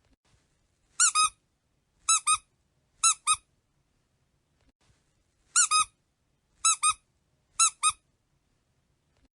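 Squeaky dog toy squeezed and released, giving six quick double squeaks, about one a second, with a longer pause in the middle.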